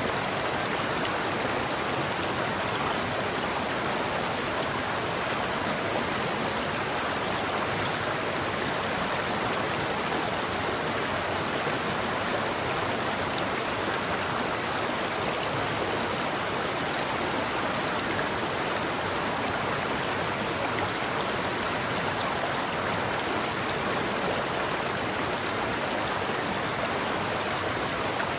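River water rushing and babbling over rocks, a steady, even flow.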